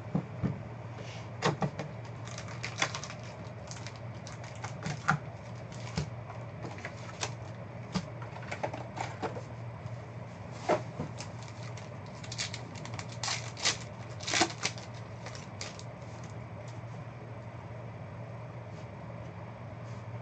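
Trading card hobby box and its packs being handled and opened by hand: scattered taps, clicks and crinkles of cardboard and wrappers, dying away in the last few seconds. A low steady hum runs underneath.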